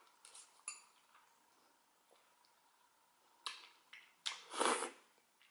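A metal fork clinks twice against a glass bowl, the second clink ringing briefly; near the end comes a loud half-second slurp of ramen noodles being sucked in.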